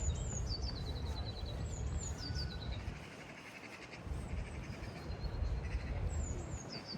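A small songbird singing short phrases that step down in pitch and end in a quick trill, three times, over a steady low city rumble.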